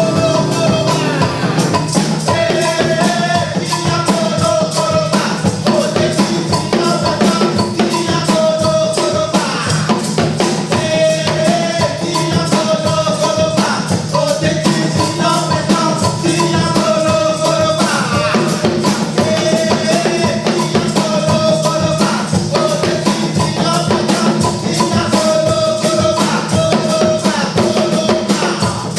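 Music with a steady, busy beat of drums and percussion under a short melodic phrase that repeats every couple of seconds.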